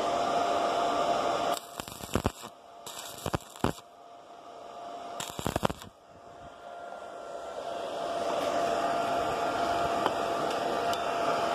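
Several short, loud bursts between about 1.5 and 6 s, as arc welding on a steel pipe drill bit throws sparks. A steady machine noise runs before and after, fading back in over a couple of seconds.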